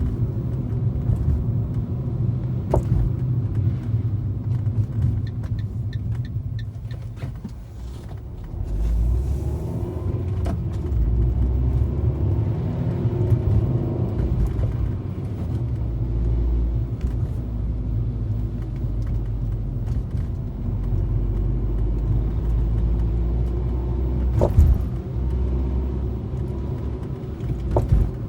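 Cabin noise of a 2013 Fiat 500 driving over a rough road: a steady rumble of engine and tyres, broken by occasional sharp clicks from under the car as it goes over bumps, the loudest about three-quarters of the way through. The cause of the clicking is unknown to the owner.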